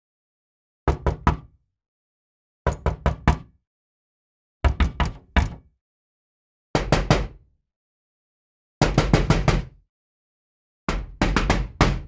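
Knocking sound effect: six bursts of quick raps, about two seconds apart, the later bursts longer.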